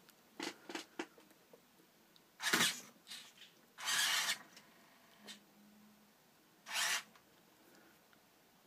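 Hobby servo motors of a six-axis robotic arm whirring in short bursts as its joints move: a few brief ones in the first second, then longer ones about 2.5, 4 and 7 seconds in.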